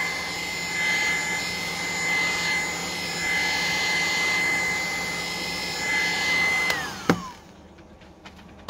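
Heat gun running with a steady blower rush and a high whine while warming a phone's back glass. About seven seconds in it is switched off: the whine falls as the fan winds down, and there is a knock.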